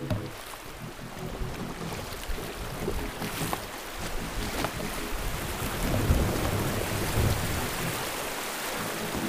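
River water rushing and splashing, growing louder toward the middle, with a few light knocks.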